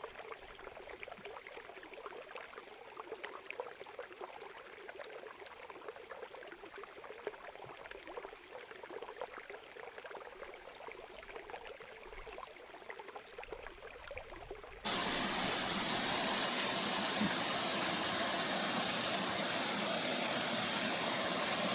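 Creek water running faintly for most of the first fifteen seconds, then an abrupt cut to a louder, steady rush of flowing stream water up close.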